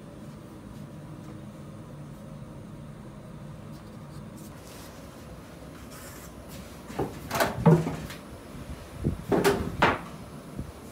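A steady low hum, then two clusters of short knocks and scrapes on a hard surface, about seven and about nine to ten seconds in, from a baker's tray and tools being handled at the bench.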